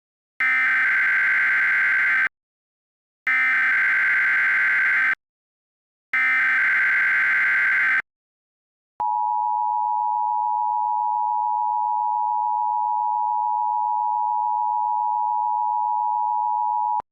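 Emergency Alert System tones: the SAME header sent three times as short runs of rapid digital data tones, each about two seconds long with a second's gap between them. A moment later comes the steady two-tone attention signal, held for about eight seconds.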